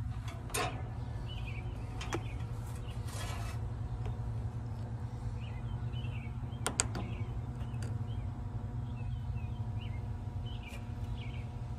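Steady low machine hum with a few faint steady tones above it, broken by a few light clicks as multimeter probes are set on the terminals of a dual run capacitor. Faint bird chirps can be heard now and then.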